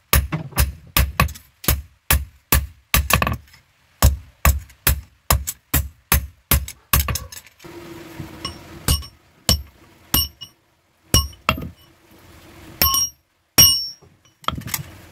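Hand hammer striking a red-hot knife blade on a steel anvil block while forging it: an even run of blows about three a second for the first half. After that the strikes come more sparsely and ring out with a bright metallic tone.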